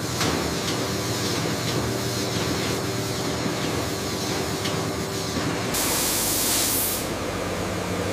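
Milking parlour machinery: a steady hum and hiss with faint intermittent clicks. About six seconds in comes a louder hiss lasting about a second, after which a lower, steadier hum carries on.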